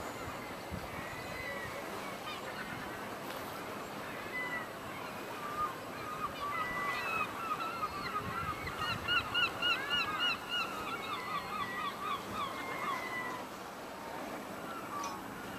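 Gulls calling, with a long run of quick repeated cries in the middle, over a steady background rush of noise.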